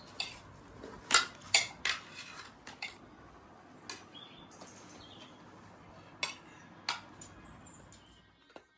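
Cutlery and dishes clinking: about nine sharp, separate clinks at uneven intervals.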